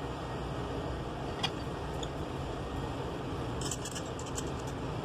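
Light metallic clicks and taps from the stainless-steel sieve stack and its clamping bar being fitted and tightened by hand on a sieve shaker: one click about a second and a half in, a small cluster near the end, over a steady background noise.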